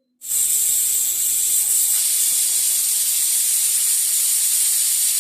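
Pressure cooker whistle venting steam: a loud, steady hiss that starts suddenly about a quarter second in. It is the sign that the cooker has come up to pressure, one of the whistles counted to time the rice.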